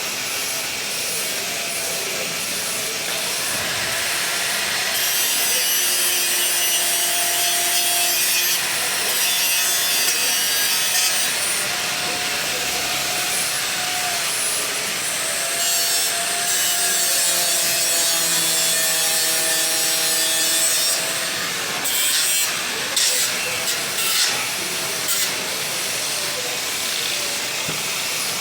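Angle grinder working steel: a continuous abrasive rasp, with the motor's pitch sagging and recovering as it is pressed into the metal. A few sharp knocks of metal near the end.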